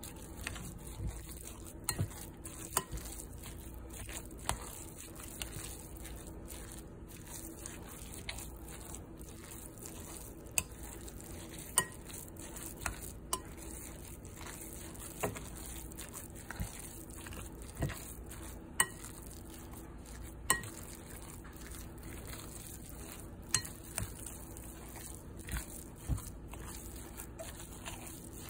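A spoon stirring and folding a thick crab cake mixture in a glass bowl, with irregular clinks and taps of the spoon against the glass.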